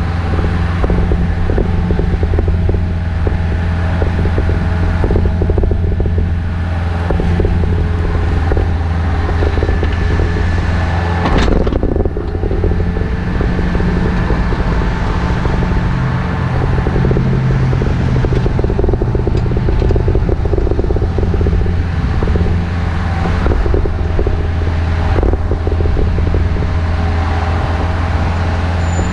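Takeuchi TB153FR compact excavator's diesel engine running steadily under work, with frequent short knocks and scrapes of the machine digging, one sharper knock about eleven seconds in.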